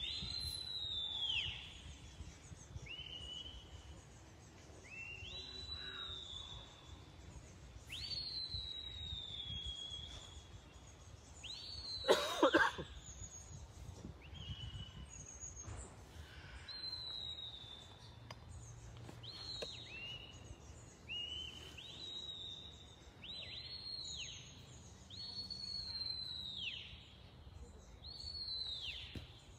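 Shepherd's whistle commands from a sheepdog handler directing the working dog on its gather: a series of short high whistles, some rising then falling, some in two steps, every second or few and more frequent near the end. A brief louder call sounds about twelve seconds in.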